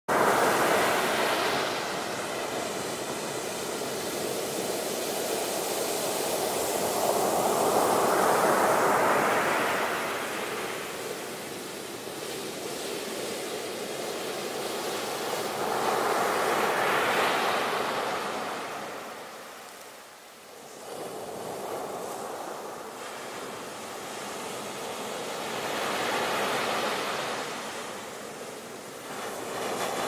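Ocean surf: waves breaking and washing up the beach, swelling and fading in slow surges about every eight to nine seconds, with a brief lull about twenty seconds in.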